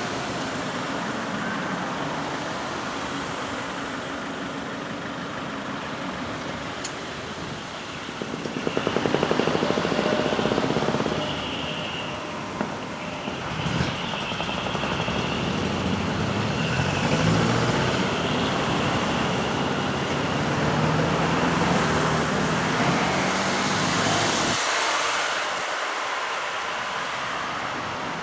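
Heavy diesel trucks (decorated dekotora trucks) driving past as they leave, a steady rumble of engines and exhaust that grows louder about nine seconds in as one comes close.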